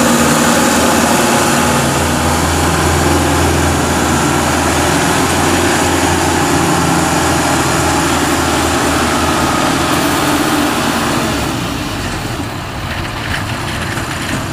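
Engine of a small tracked farm machine running steadily as it crawls over a steel ramp bridge across a ditch, growing fainter near the end as it moves off.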